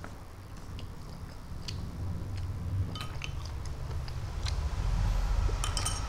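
A metal spoon clinking against a glass bowl, a short ringing clink about three seconds in and a cluster of clinks near the end, with lighter clicks of eating in between.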